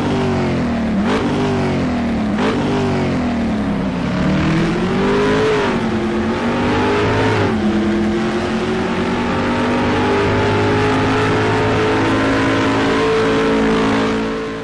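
Car engine revving, its pitch rising and dropping several times, then running steadily at speed; it fades out near the end.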